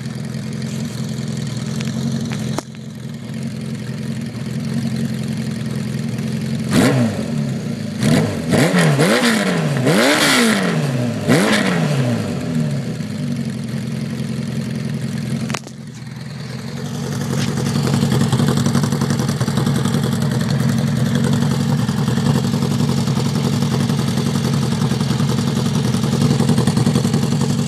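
A 1980 Honda CB650 Custom's air-cooled inline-four is running through aftermarket Kerker 4-into-2 exhausts. It idles steadily, is blipped in several quick revs that rise and fall about seven to thirteen seconds in, then settles back to a steady idle.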